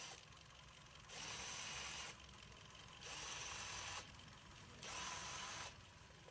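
Hyundai Accent 1.6 engine idling roughly with an ignition misfire from a faulty coil or spark plug. A hiss comes and goes over it in bursts of about a second, roughly every two seconds.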